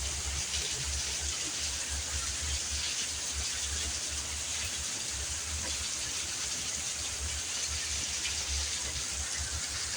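Heavy rain pouring down, a steady dense hiss that holds even throughout, with a low fluctuating rumble underneath.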